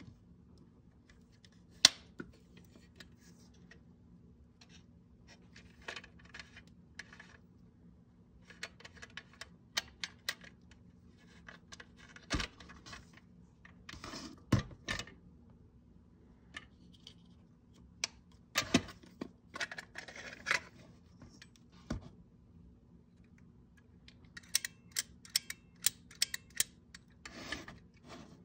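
Scattered clicks, taps and short rustles of a Kodak Brownie Holiday Flash camera's plastic body, flash unit and strap being handled and opened. The loudest is one sharp click about two seconds in, and a quick run of clicks comes near the end.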